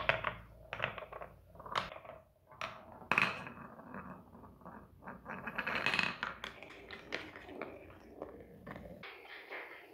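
A large ball rolling down a wooden Trix Track marble run: a low rolling rumble on the wooden track broken by irregular clacks and knocks as it drops between pieces and runs through a funnel bowl, loudest about six seconds in and fading near the end.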